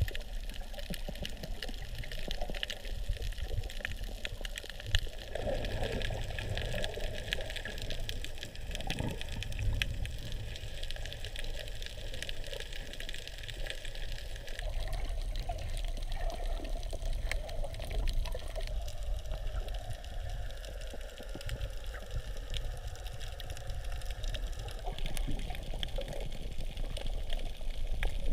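Underwater ambience picked up by a camera in its housing: a steady watery hiss with many fine clicks and crackles over a low rumble.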